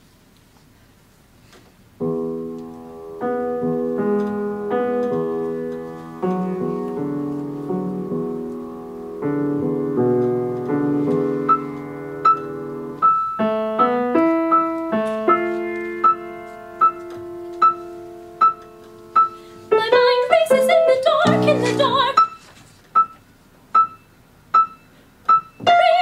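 Piano introduction: a series of sustained chords, then a high note repeated at a steady pulse, a little under once a second, over held lower chords. Voices come in briefly about twenty seconds in.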